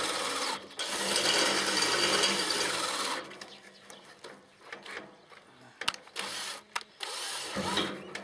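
Battery drill with a 4.8 mm bit drilling for about three seconds, with a short break about half a second in, then stopping, followed by a few light clicks of handling. The drill's battery is running low, which the user takes as a sign it needs changing.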